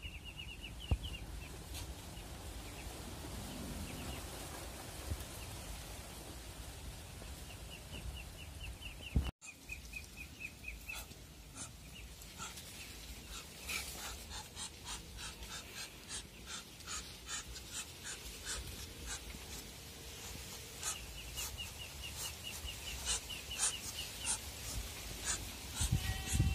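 Muscovy ducks making breathy, panting hisses. A short, rapid, high-pitched trill comes a few times, and scattered light clicks run through the second half.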